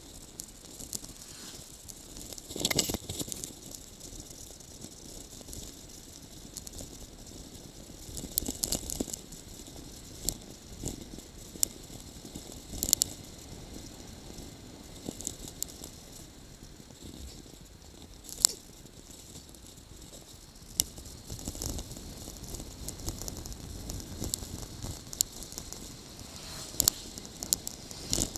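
Bicycle rattling and clicking as it rides over the road, picked up by a handlebar-mounted camera: a steady hiss with scattered sharp knocks, the loudest about three seconds in.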